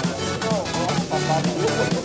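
Electronic dance music with a steady, driving beat and gliding synth lines.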